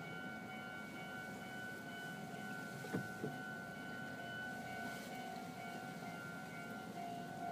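Japanese railway level crossing warning bell ringing steadily, with a brief knock about three seconds in.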